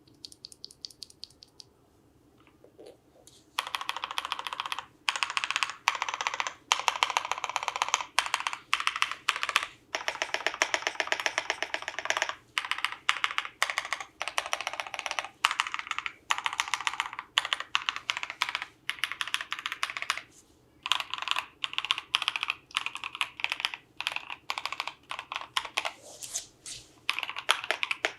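Fast typing on a KBDLite R2 mechanical keyboard with lubed NovelKeys Cream linear switches, a polycarbonate plate and PBT keycaps. A few light keystrokes at first, then from about three and a half seconds in, rapid continuous runs of keystrokes broken by short pauses.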